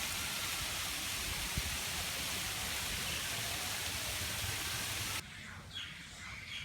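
Steady rushing of water. It cuts off abruptly about five seconds in, leaving a much quieter background.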